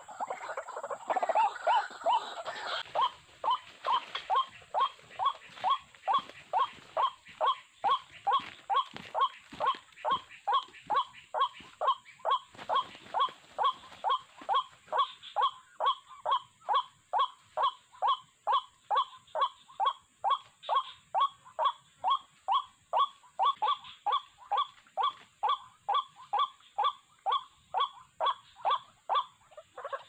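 White-breasted waterhen calling a rapid, steady run of short 'kwak' notes, about two a second, after a more jumbled, louder start in the first few seconds.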